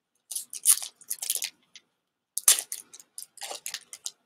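Foil wrapper of a Pokémon Fusion Strike booster pack being crinkled and torn open by hand, in irregular crackly bursts with a pause of about a second near the middle.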